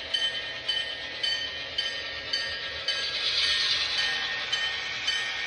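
HO-scale MTH GP38-2 model diesel locomotive with Proto-Sound 3.0 running, its onboard speaker playing diesel engine sound. Regular clicks come about twice a second as it rolls along the track, and a hissy swell rises a little past halfway.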